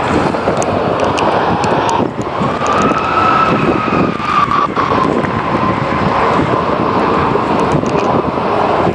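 Aircraft flying over: a steady roar with an engine whine that rises and then slowly falls in pitch a couple of seconds in.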